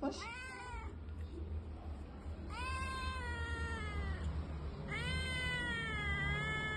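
A young domestic kitten meowing three times: a short meow at the start, then two long, drawn-out meows. These are the calls of a kitten crying for its absent mother.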